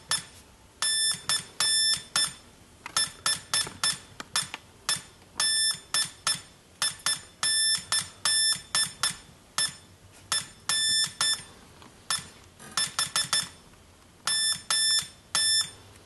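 Homemade Morse code practice oscillator sounding through a small speaker as a J-38 straight key is keyed: a high-pitched, buzzy beep switched on and off in short and long pulses, dots and dashes spelling out words, with short pauses between letters and words.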